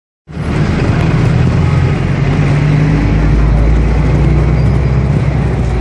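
A motor vehicle's engine running steadily with a low drone, coming in a moment after the start.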